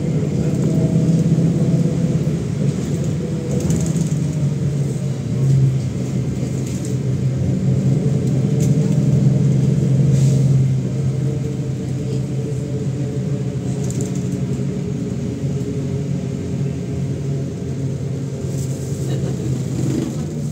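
MAZ-107 city bus in motion, heard from inside the cabin: a steady low drone of its diesel engine and road noise, easing slightly after about ten seconds.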